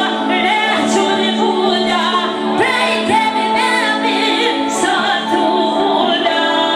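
A woman singing live through a microphone, her voice amplified over steady, held backing music.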